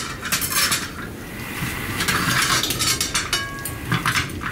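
Knives and forks scraping and clinking against plates as two people cut and eat meat at a table, with a short ringing clink a little after three seconds in.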